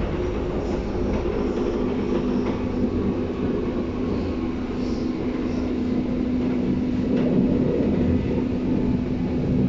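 Berlin U-Bahn train running, heard from inside the passenger car: a steady rumble of the running gear with a steady low hum that comes in about two seconds in and holds.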